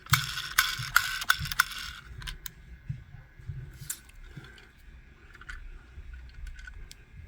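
Small hard objects being handled: a dense burst of clicking and rattling for about two seconds, then scattered single clicks, typical of a diecast model car being turned over and worked by hand.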